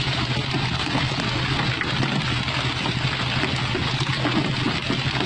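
Fishing boat's engine droning steadily under a constant rush and splash of water along the hull.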